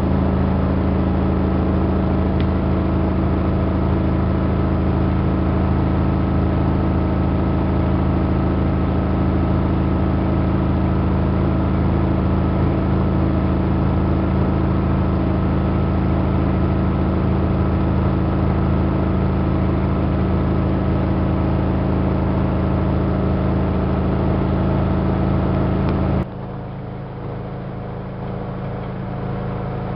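Miele Softtronic W3657 washing machine running, likely in its spin cycle, with a loud steady motor hum. About 26 seconds in the sound drops suddenly to a lower, different hum, then slowly builds again.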